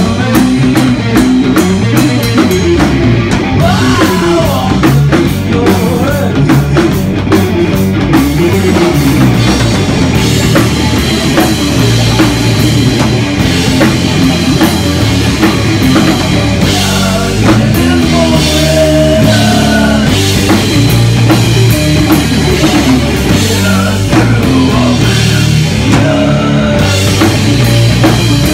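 A live rock band playing loudly: drum kit and guitar, recorded in a small club.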